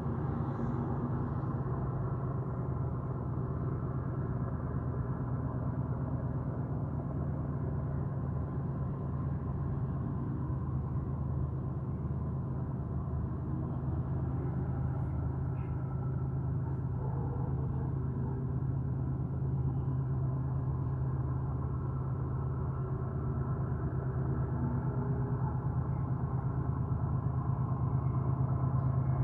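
Steady low droning hum made of several constant tones, described as a strange noise coming from the sky, of unknown origin. It grows slightly louder near the end.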